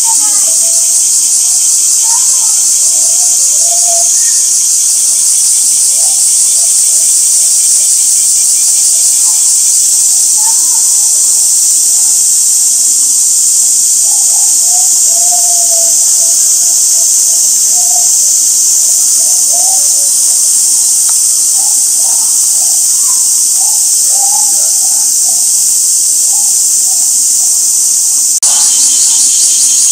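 A chorus of summer cicadas giving a loud, steady, high-pitched drone.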